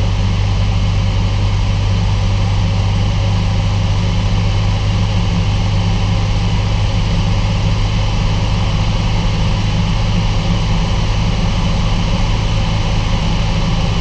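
Cessna 172's piston engine and propeller droning steadily in cruise, heard inside the cabin, with no change in power.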